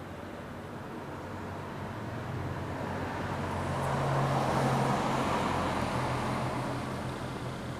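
A car driving past, its engine and tyre noise growing louder to a peak just past the middle, then fading away.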